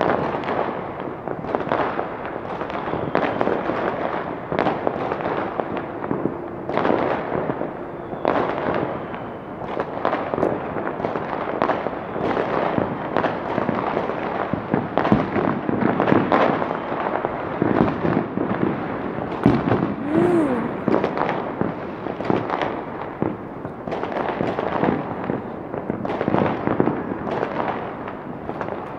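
Many fireworks and firecrackers going off at once, a continuous dense crackle of overlapping bangs and pops with no let-up.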